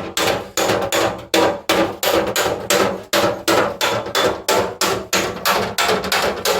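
A hammer beating metal bodywork in a steady rhythm, about three blows a second, each with a short metallic ring.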